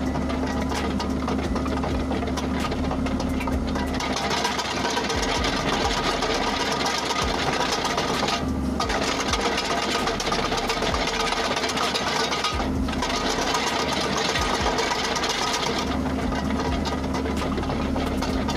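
Komatsu PC130F-7 excavator's diesel engine running while its crawler track travels, the steel track links clattering steadily from about 4 s in until about 16 s in, with two brief pauses in between. This is a travel test after the LS main pump was adjusted to cure slow track speed.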